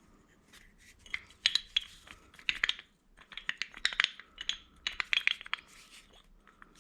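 Removed early Ford Bronco door hinge worked back and forth by hand, its loose parts clicking and clinking metal on metal in three quick bursts. The rattle comes from slack and play in the worn hinge.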